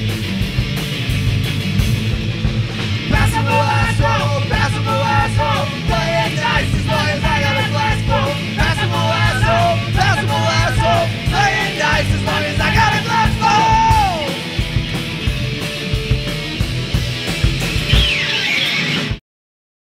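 Loud punk-rock music with a steady driving beat and yelled vocals through the middle stretch, cutting off abruptly about a second before the end.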